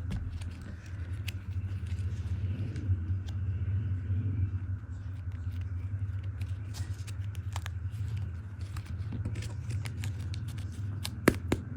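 Scattered small crinkles and clicks from polymer clay packaging being handled, with one sharper click near the end, over a steady low hum.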